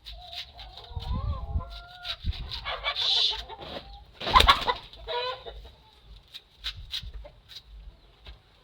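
Chickens clucking and calling close by, with a louder burst about halfway through and scattered sharp clicks.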